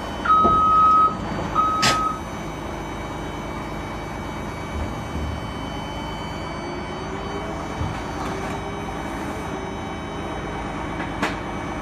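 Caterpillar excavator's electronic warning alarm beeping twice near the start, a longer beep then a shorter one, over the steady running of the machine's engine and hydraulics. A faint whine rises and falls in the middle, with a couple of light knocks.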